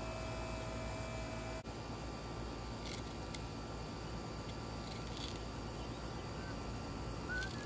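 A fillet knife slicing along a flathead catfish, heard as three faint, brief rasps about two seconds apart over a steady low hum.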